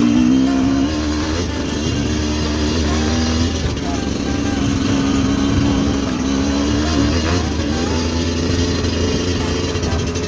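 Motorcycle engine running while being ridden, its pitch rising and falling with the throttle, over a steady rushing of wind on the microphone.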